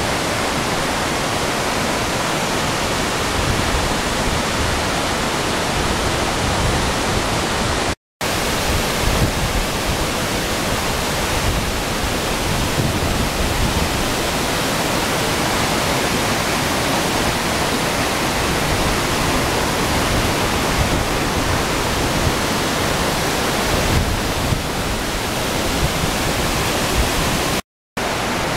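Waterfall rushing: a steady, loud wash of falling water. It cuts out briefly twice, about 8 seconds in and near the end.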